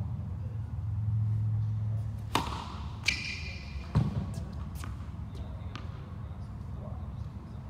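Tennis balls bouncing and knocking on an indoor hard court, echoing in the hall: a sharp hit about two seconds in, a short squeak just after three seconds, a dull thud about four seconds in, and a few lighter taps after. A steady low hum runs underneath.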